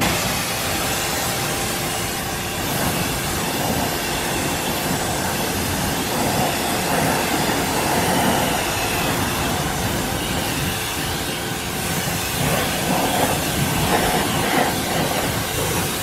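Pressurised water jet from a hose-fed spray wand hitting a pickup truck's tire and wheel, a steady spray rinsing off shampoo foam.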